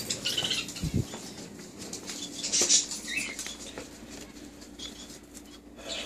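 Scattered rustling, light taps and clicks of small dogs' claws pattering about on a wooden floor, mixed with phone-handling noise, with a low thump about a second in.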